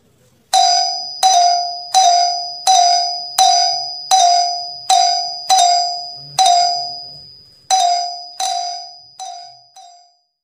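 Ding-dong calling bell chime struck again and again, about a dozen ringing strokes roughly 0.7 s apart, each dying away before the next. There is a slightly longer gap about seven seconds in, and the last strokes are fainter.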